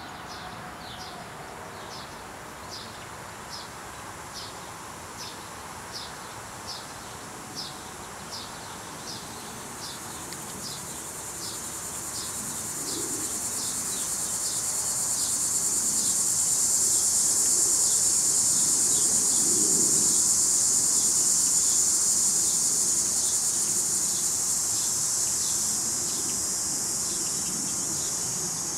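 Insects in a summer yard: a short high chirp repeating about one and a half times a second, joined about ten seconds in by a cicada's high buzzing drone that swells to full strength and eases off near the end. At the very start the last of a distant outdoor warning siren's wind-down fades out.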